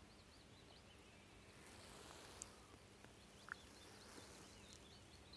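Near silence: outdoor quiet with faint, distant bird chirps scattered throughout and one short whistled note about three and a half seconds in.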